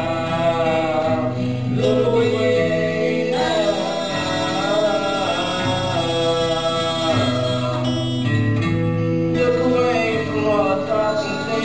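Two acoustic guitars played live with a man singing the melody over them.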